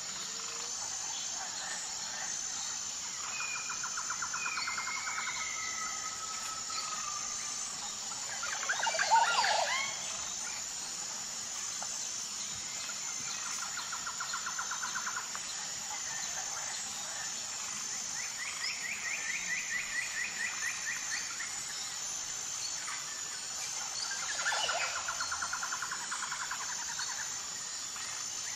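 Nature ambience: birds calling and trilling over a steady high insect drone, with louder bird calls about nine seconds in and again near the end.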